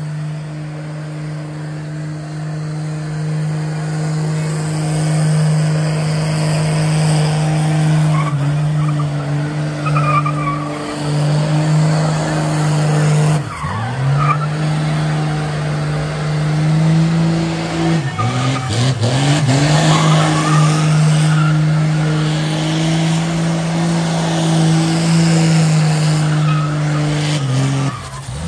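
Ford Galaxie engine held at high revs through a long burnout, its rear tyres spinning and squealing against the pavement. The engine note dips sharply twice as the throttle is briefly lifted, then comes back up, and it drops off near the end.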